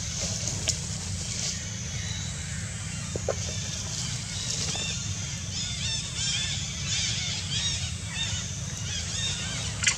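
Outdoor ambience with a steady low rumble, and repeated short high-pitched chirping calls that start about halfway through and come a couple of times a second. A sharp click comes near the end.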